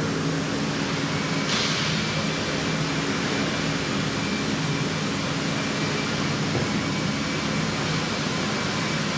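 Three-axis CNC milling machine running while it mills a foam pattern: a steady mechanical noise with a low hum. About a second and a half in, a thin high tone and a brighter hiss come in and then hold steady.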